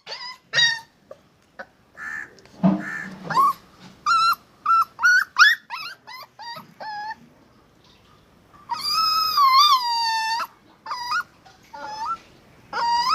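Puppies whimpering and yelping in a run of short, high-pitched cries, with one longer drawn-out whine about nine seconds in.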